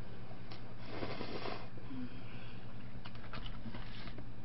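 Eating spaghetti with a fork from a foil tray: a noisy slurp about a second in, then a few light clicks and taps of fork and foil containers near the end, over a steady low electrical hum.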